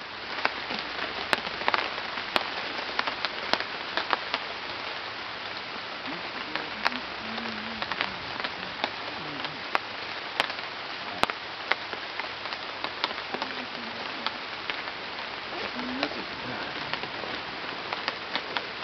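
Rain pattering on forest foliage: a steady hiss with many small, sharp drip taps scattered through it.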